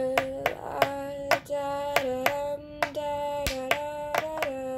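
A young voice singing a wordless melody in held notes that step between pitches, over sharp hand claps at about two to three a second.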